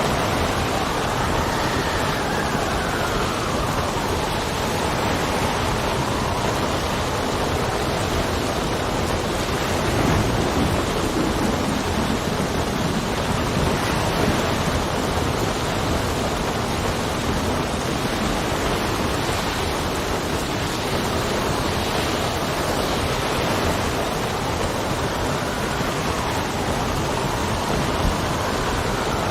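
Steady heavy rain with wind blowing over it, a whistling gust rising and falling in pitch near the start and again near the end.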